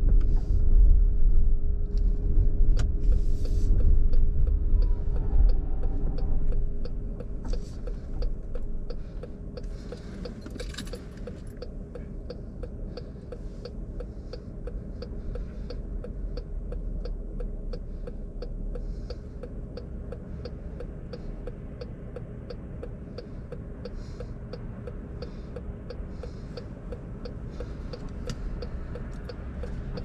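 Inside the cabin of a 2020 Chrysler Pacifica Hybrid: road rumble and the hybrid drive's steady hum as the minivan slows to a stop, after which it goes quieter about six seconds in. A turn-signal indicator ticks steadily and evenly while it waits.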